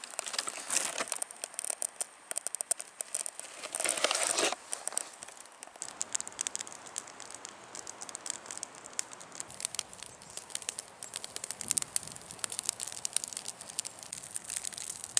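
Dry bark and twigs rustling and crumpling while kindling is lit, then the light, irregular crackling of a small twig fire catching.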